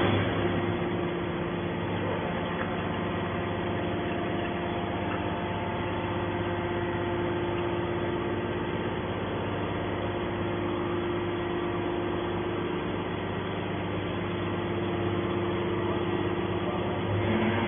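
Hydraulic scrap metal baler running: a steady machine hum from its motor and pump, with several fixed tones over a noisy background.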